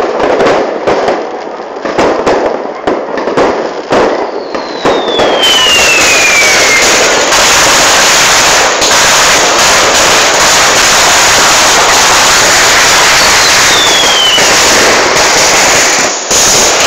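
Fireworks and firecrackers going off close by: scattered sharp bangs at first, then from about five seconds in a loud, unbroken rapid crackle that stops near the end. Two falling whistles sound over it, one early and one later.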